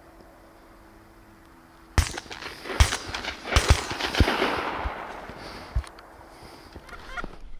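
A volley of shotgun fire from hunters shooting at passing Canada geese: about six sharp shots over four seconds, starting about two seconds in, two of them almost together.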